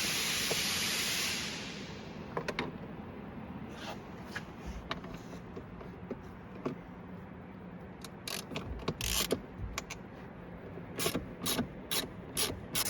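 A socket ratchet backing out 7 mm screws, its pawl clicking in short runs in the second half, after a brief hiss near the start.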